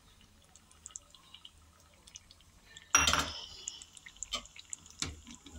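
Thick curd poured from a steel cup onto cooked vegetables in a pan, with faint soft drips and plops. About three seconds in comes one sharp knock with a brief metallic ring, followed by a couple of lighter taps.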